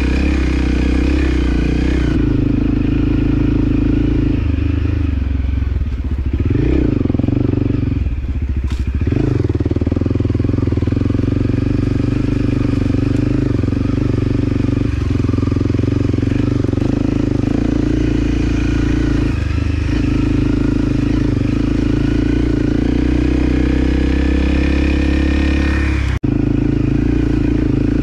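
Motorcycle engine running under way on a dirt trail, steady for most of the time, with the engine speed dropping and picking up again a few seconds in. The sound cuts out for an instant near the end.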